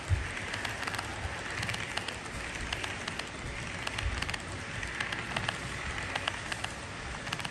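HO-gauge model electric train running over a model girder bridge: a steady rolling hiss of metal wheels on rail with many light clicks, and a low thump just at the start.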